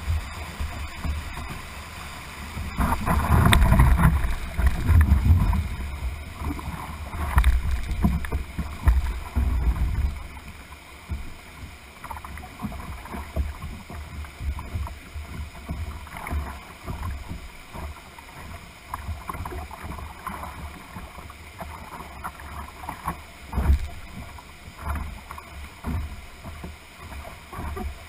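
Whitewater of a class II–III rapid rushing past a canoe, with water slapping and knocking against the hull; the heaviest low thumping and splashing comes from about three to ten seconds in.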